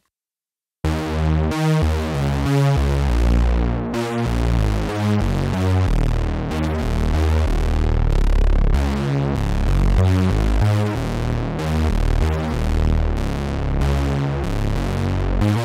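Oberheim Two Voice Pro analog duophonic synthesizer playing a thick, huge-sounding layered patch. Both voices carry nearly the same sound, panned left and right for a wide, chorus-like stereo image. After about a second of silence, a run of keyboard notes with a deep low end starts.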